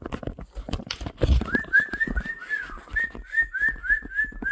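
Knocks and clicks of handling and movement, then, about a second and a half in, a rapid run of about a dozen short high chirps, roughly four a second.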